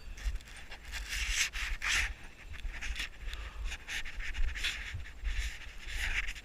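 Footsteps crunching and scuffing through snow, an uneven step every half second to a second, over a low rumble of wind or handling on the microphone.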